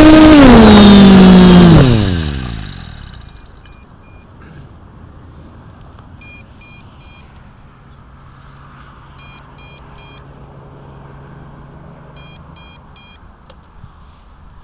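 MJX Bugs B5W quadcopter's brushless motors whining, then falling in pitch and spinning down to a stop about two seconds in. After that an electronic beeper sounds in groups of three short beeps, about every three seconds, over steady wind noise.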